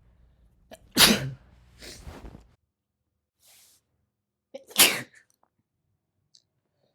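Two sudden human sneezes about four seconds apart, the first the louder and followed by softer breathy sounds.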